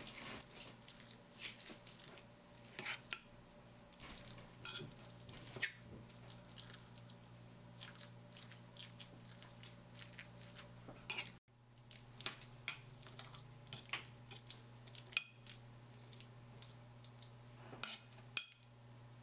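A utensil stirring and scraping a thick paneer, pea and cream mixture in a microwave-safe bowl: faint, irregular clinks and scrapes over a low steady hum, with a few brief dropouts.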